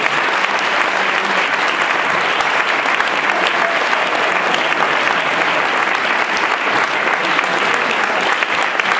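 Audience applauding: steady, dense hand-clapping that holds at an even level throughout.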